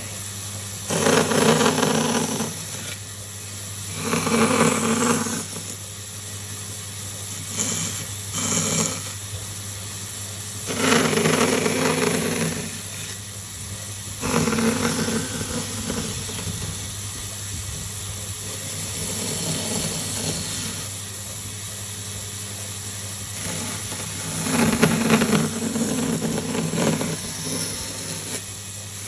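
A small electric power tool motor running in short bursts of one to two seconds, about six times, over a steady background hum.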